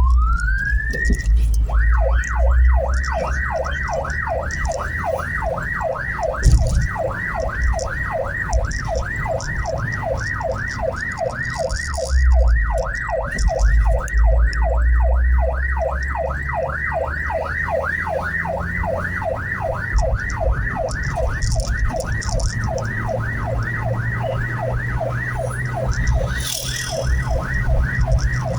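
Ambulance electronic siren: one rising wail at the start, then a fast yelp of about four sweeps a second, with the vehicle's engine and road rumble beneath.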